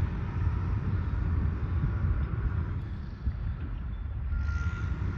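Wind rumbling and buffeting on the microphone, with a faint hiss above it. A thin, steady high tone comes in faintly about four seconds in.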